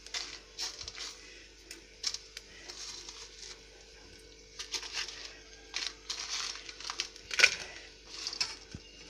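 A metal spatula stirring and scraping dry spices, curry leaves and dried red chillies as they dry-roast without oil in a metal pot: intermittent scrapes, clicks and dry rustling, with a few louder scrapes about halfway through and near the end.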